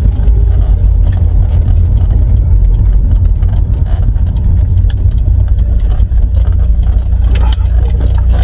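Volvo B230F 2.3-litre four-cylinder engine running steadily, a low, even drone.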